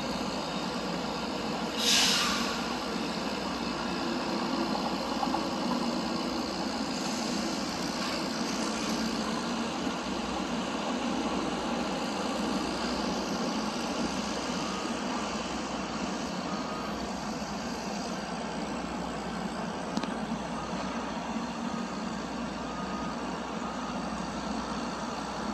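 Steady rumble of road traffic, with one short sharp hiss of released air about two seconds in.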